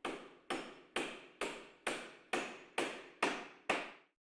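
A regular series of sharp strikes, about two a second, each ringing out briefly before the next; nine strikes, stopping shortly before the end.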